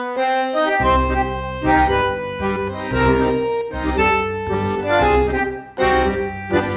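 Instrumental folk music led by an accordion, with a short pause near the end.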